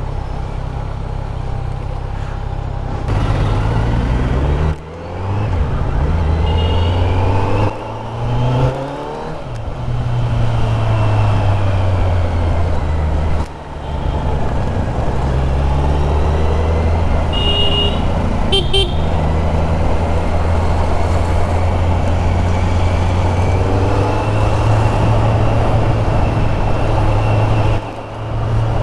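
Kawasaki Z900 inline-four engine and exhaust, heard from the rider's seat while riding in traffic. It revs up through the gears, with brief drops in sound at the shifts. About eighteen seconds in, a vehicle horn honks a few short times.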